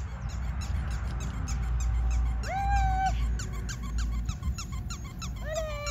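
Two short, high squeaks about three seconds apart, over quick patter of running footsteps on dry grass and a low rumble. The squeaks come either from the Rottweiler puppies or from a squeaky toy.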